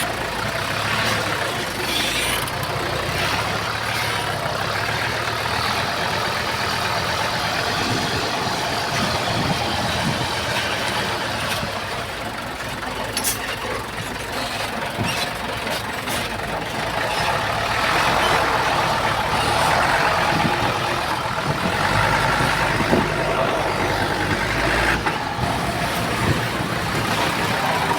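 Heavy diesel earthmoving machinery running and working steadily, growing louder for several seconds past the middle, with a few short clanks.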